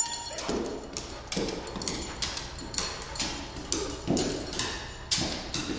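A dog's paws knocking and nails clicking on stair treads as it climbs a flight of stairs, a step landing about every second.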